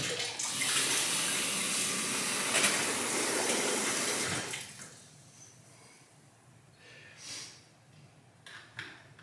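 Water pouring from a freestanding tub filler's spout into a plastic bucket, splashing steadily for about four seconds and then stopping. A few faint knocks follow.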